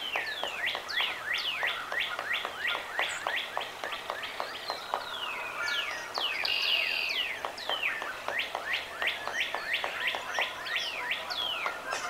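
Wild birds calling: a fast, uneven run of down-slurred whistled notes, several a second, with a harsher call about six seconds in.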